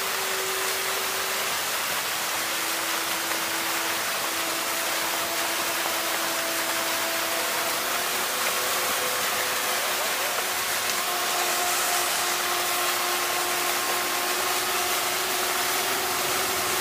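Fountain jets spraying and splashing in a steady hiss. Slow, held musical tones play faintly over it, one or two notes at a time, changing pitch every few seconds.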